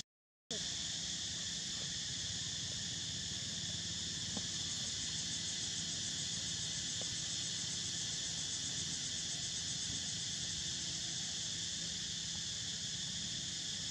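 Steady, high-pitched chorus of insects chirring without a break, after the sound drops out for half a second right at the start.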